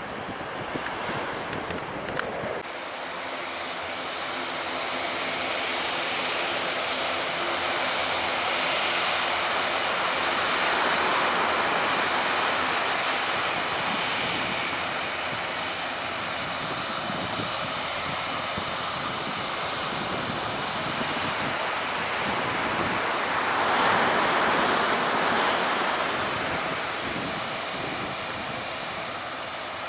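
Aircraft engine noise, a broad steady sound with faint whining tones, swelling louder about ten seconds in and again near twenty-four seconds. The first couple of seconds are surf and wind on the microphone, ending in an abrupt change.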